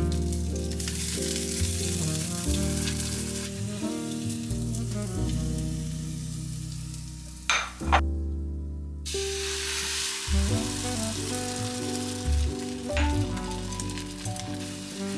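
Food sizzling in hot oil in a frying pan: first a hash brown frying, then after a short break about halfway, oil and beaten eggs sizzling. Soft background music plays under it.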